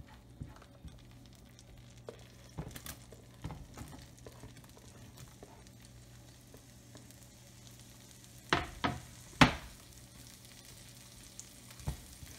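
Sliced onion frying quietly in melted margarine in a nonstick pan, stirred with a silicone spatula, with small scraping clicks. About two-thirds of the way in come three sharp knocks in quick succession against the pan.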